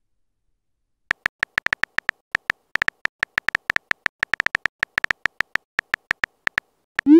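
Phone keyboard typing sound effect: a quick, uneven run of short clicks on the same pitch, about six a second, as a text message is typed. Near the end comes a short rising swoop, the message-sent sound.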